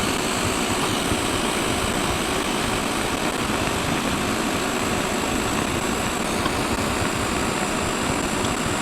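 TIG welder running on thin sheet-steel fender: a constant, even drone with hiss that stays unbroken throughout.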